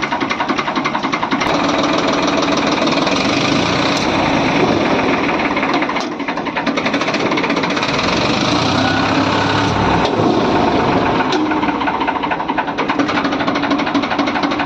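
Farmtrac 60 tractor's diesel engine running with a fast, even clatter, its note shifting a little about six seconds in and again around eight to ten seconds in.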